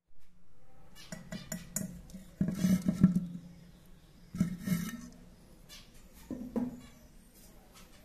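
Lovebird chicks in a nest box: scratching and clicking in the nesting material, with three short raspy calls about two and a half, four and a half and six and a half seconds in.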